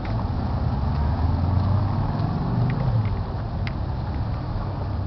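A car passing by: a low engine and tyre rumble that swells through the middle and eases off, with a few faint ticks over it.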